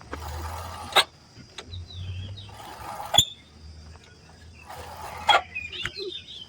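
Motorcycle rear drum brake squeaking ('chu chu') three times, a short sharp squeal each time the brake is applied, about two seconds apart. The squeal comes from dust and rainwater that have got into the rear drum brake.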